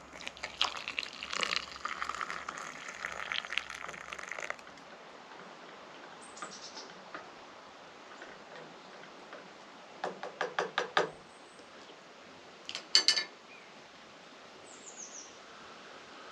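Hot water poured from a stainless steel camping mug into a cup, a trickling pour lasting about four seconds. Later comes a quick run of small clinks, and a couple more a few seconds after.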